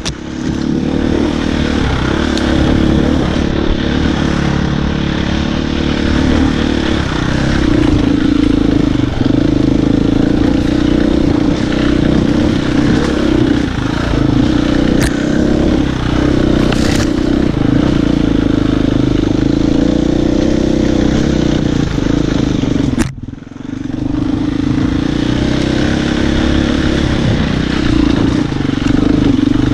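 Husqvarna FE 250 four-stroke single-cylinder enduro engine running under load at fairly steady revs while the bike is ridden along a trail. The sound drops out sharply for a moment about two-thirds of the way through, then returns.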